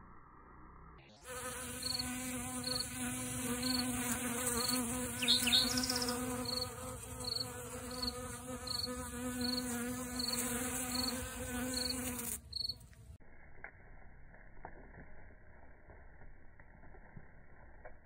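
Honeybees buzzing at a flower: a steady wingbeat hum with a clear low pitch and overtones, starting about a second in and cutting off sharply at about twelve seconds. Over the hum a cricket chirps a little more than once a second.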